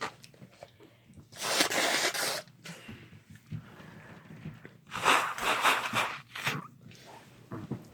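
A person sneezing: one loud sneeze about a second and a half in, then another bout of sneezing with several quick bursts about five seconds in.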